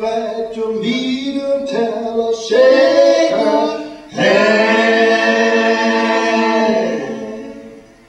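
A cappella vocal music: voices singing in harmony without instruments, moving through a few notes and then holding one long chord that fades away near the end.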